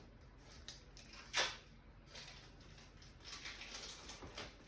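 Faint crinkling and rustling of the plastic wrappers on individually wrapped cheese slices being peeled off, with one sharper crackle about a second and a half in.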